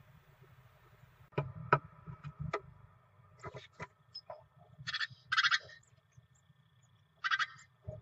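Great tit nestlings giving short bursts of begging calls as the adults feed them: three bursts, two in quick succession in the middle and one near the end. Before them, knocks and scuffs of the adult birds landing and moving on the wooden nest box.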